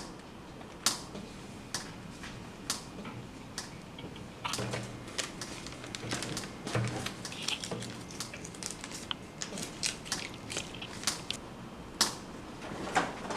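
A run of light, irregular clicks and taps, one or two a second and busier in the second half, with a sharper click about twelve seconds in.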